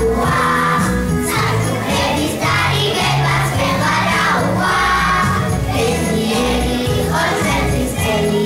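A festive song with a steady beat, children's voices singing together over a backing track.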